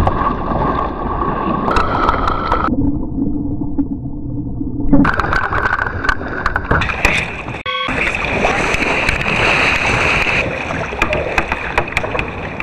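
Water splashing and sloshing around a kayak as it is paddled, with sharp paddle splashes, wind on the microphone and abrupt changes in the sound several times.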